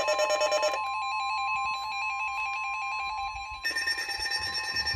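Weather radio alert going off: a steady single-pitch warning tone with fast electronic beeping over it. The beeping drops out about a second in, leaving the steady tone alone, and comes back after about three and a half seconds.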